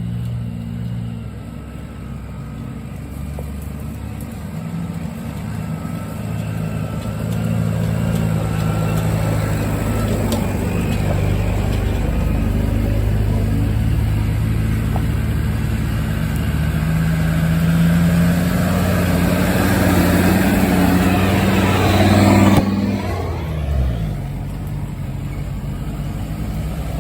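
A 4x4's engine pulling along a rough off-road track, with tyre and track noise throughout. The engine revs climb steadily for several seconds, then fall away abruptly a few seconds before the end as the throttle is lifted.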